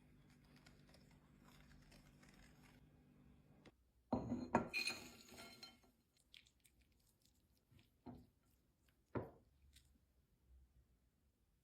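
Kitchen baking sounds: a quick cluster of clinks and taps of glass and utensils about four seconds in, followed by two single knocks, over a faint steady hum at the start.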